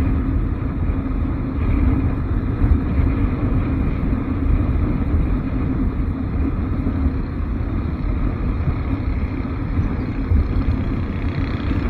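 Motorcycle ridden at a steady speed: a steady low rumble of engine and wind noise.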